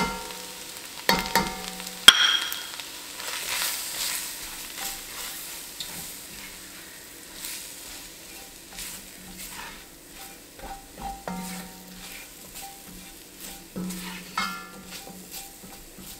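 Chopped vegetables sizzling in an enamelled Dutch oven as a spatula stirs flour and tomato paste through them. A few sharp knocks against the pot ring briefly, the loudest about two seconds in.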